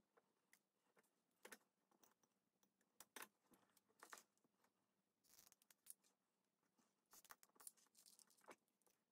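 Faint, scattered light clicks and rustles of hands at work: a rhinestone mesh trim being wrapped and pressed onto a ceramic jar, and a hot glue gun being picked up off a cloth. The small sounds come more often near the end.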